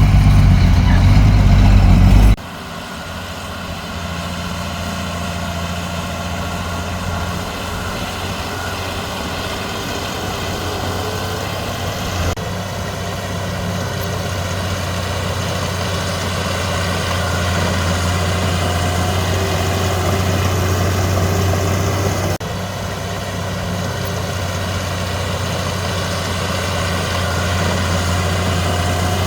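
Heavy diesel engine of earthmoving machinery running steadily. It is louder and deeper for the first two seconds, then drops abruptly to a quieter, even run that slowly grows louder, with brief breaks about 12 and 22 seconds in.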